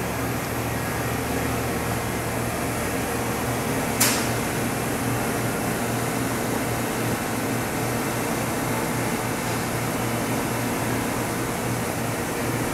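Steady mechanical hum of shop machinery and ventilation, with a low mains-like drone under a constant hiss. A single sharp click sounds about four seconds in.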